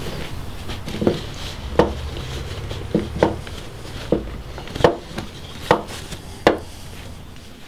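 Hard wooden knocks, about eight at uneven spacing, roughly one a second, over a low steady rumble.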